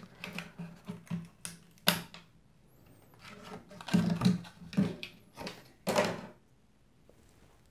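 Clear plastic clamshell RAM packaging being pried open by hand: a series of clicks, crackles and snaps as the plastic is pulled apart, the sharpest about two seconds in and again about six seconds in.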